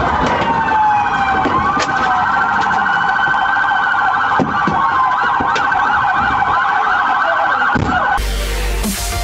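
Several police car sirens wailing and yelping over each other, one switching to a fast yelp midway. About eight seconds in, they cut off abruptly into loud electronic dance music.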